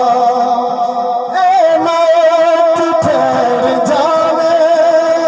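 A man singing a Punjabi naat, a devotional song in praise of the Prophet. He draws out long, wavering, ornamented notes on one continuous line, amplified through a microphone and PA loudspeaker.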